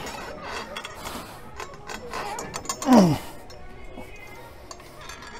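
Fly machine's weight stack and cables clicking and clinking through a set, over background music, with a short grunt of effort that drops in pitch about three seconds in.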